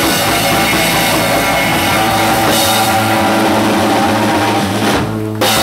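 Live rock band, amplified electric guitar and drum kit, playing an instrumental loud and full. It breaks off about five seconds in and comes back with one last loud hit just before the end: the close of the song.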